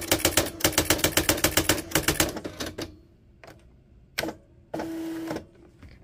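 Nakajima WPT-160 electronic daisy-wheel typewriter printing in bold mode, each letter struck three times: a rapid, even run of mechanical strikes for about three seconds. A couple of single clicks and a short motor whirr follow near the end.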